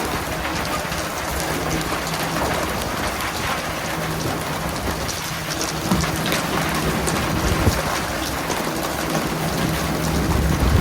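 Steady hiss of splashing, rain-like water over a low steady hum, with a few sharp knocks about six seconds in, shortly after, and near the end.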